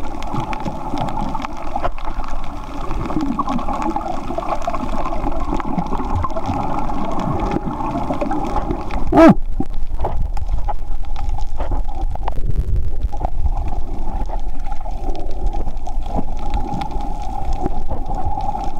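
Underwater sound picked up by a submerged camera: a steady muffled water noise with many scattered faint clicks, and a short gurgle about halfway through.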